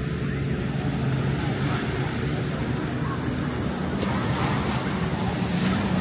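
Surf washing on a beach under the steady drone of a running engine.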